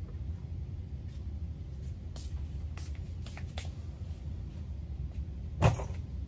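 Folded clothes and small items being handled, with faint rustles and light clicks, over a steady low rumble; one sharp knock near the end is the loudest sound.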